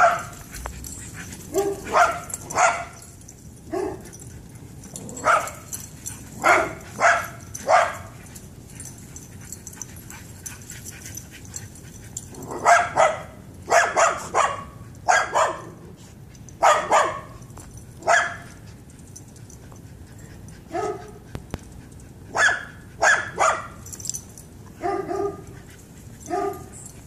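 Excited play barking: a dog barks repeatedly in short bursts of two or three barks, with pauses of a few seconds between the bursts, while a Shiba Inu and a Pit Bull chase each other in play.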